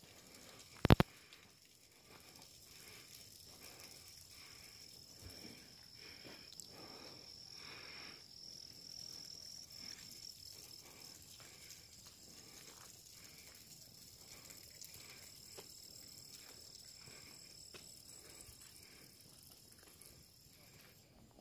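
Footsteps on a rough paved path, about two a second, under a steady high-pitched insect drone. There is a sharp click about a second in.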